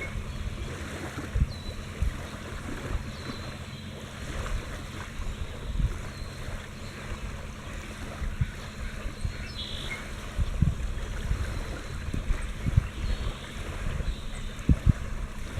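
Pacific Ocean waves washing on a beach, a steady rushing wash of water, with scattered low thumps of wind on the microphone that grow more frequent near the end.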